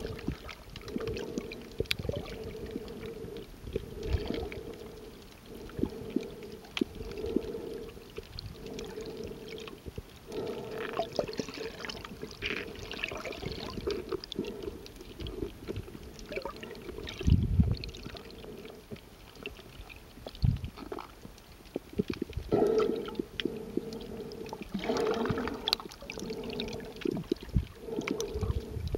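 Muffled underwater sound through the microphone of a submerged waterproof camera: water sloshing and moving against the camera body in uneven swells, with scattered sharp clicks and an occasional louder thump.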